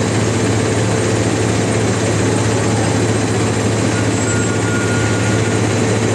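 A King Long tour coach idling, a loud, steady low engine drone.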